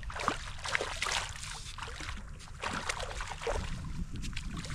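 Water splashing and sloshing in the shallows, with scattered short splashes over a steady low rumble.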